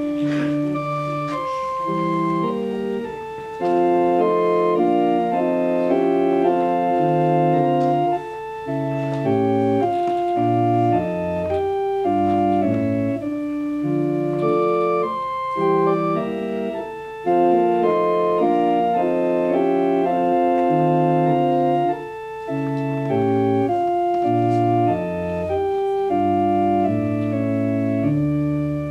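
Organ playing a slow piece of sustained chords, the notes moving every second or so, with a few short breaks between phrases.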